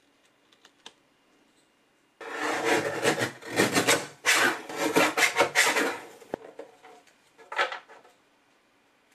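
Paper trimmer's sliding blade cutting through a sheet of business-card stock: a rough scraping rasp that lasts about four seconds, with a short second scrape near the end.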